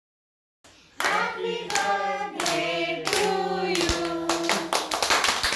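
A group of voices, children among them, singing together to rhythmic hand clapping, starting about a second in. Near the end the singing stops and gives way to continuous applause.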